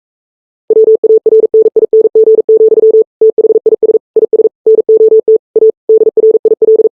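An electronic beep tone at one steady pitch, keyed on and off in a rapid, uneven string of short and longer beeps like Morse code, starting just under a second in.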